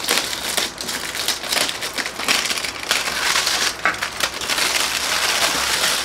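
Clear plastic packaging bag crinkling and rustling as it is handled and pulled off a glass pot lid: a dense, continuous run of crackles.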